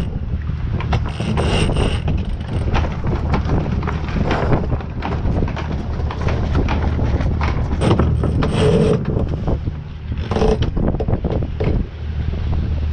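Sailboat sheet winch clicking and lines running through their blocks as the headsail is hauled out and set, over steady wind rush on the microphone.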